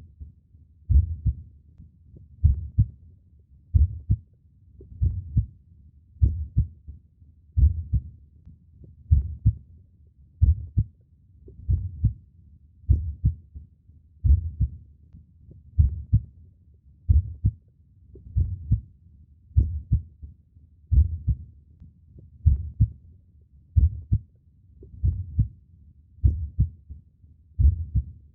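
Human heartbeat, slow and steady: a deep double thump (lub-dub) repeating about every 1.3 seconds, around 45 beats a minute.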